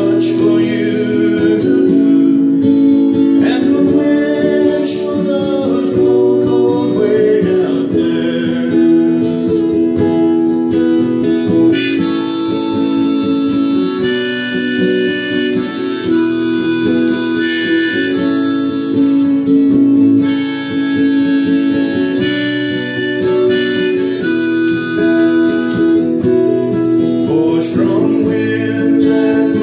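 Harmonica playing a sustained melody over strummed acoustic guitar: an instrumental break between verses of a folk song.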